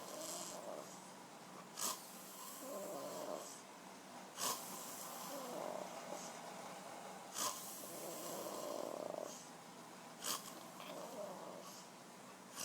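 A big man snoring heavily in deep sleep, a loud sharp snort about every three seconds with a rougher breath between each.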